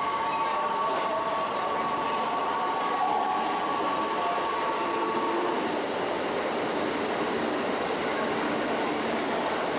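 Keikyu electric train running in the station, with a steady whine over the rail noise that stops about five and a half seconds in.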